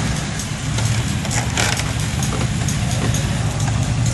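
Mercedes-Benz W124's 5.0-litre V8 idling with a steady low rumble.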